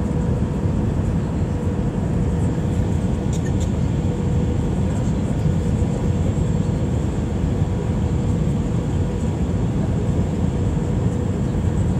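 Airbus A319 cabin noise during the descent for landing: a steady low rush of engines and airflow heard through the fuselage, with a faint steady hum on top.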